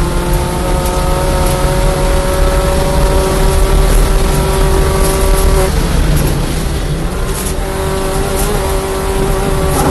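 In-cabin sound of a B-Spec race car's four-cylinder engine pulling hard down a straight, its note climbing slowly. About six seconds in the note cuts off as the driver lifts and brakes for a corner, then the engine picks up again at a steady pitch. Wind and road noise run underneath throughout.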